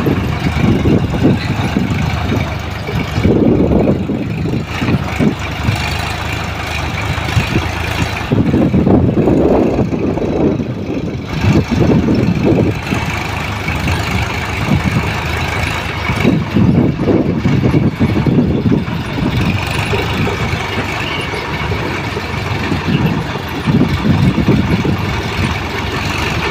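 Swaraj tractor diesel engines running hard under load. The low engine note swells and eases several times, over a faint steady higher whine.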